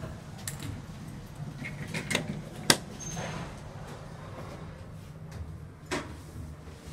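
Mitsubishi Elept elevator doors sliding, with a sharp clack about two and a half seconds in and a few lighter knocks, over a steady low hum.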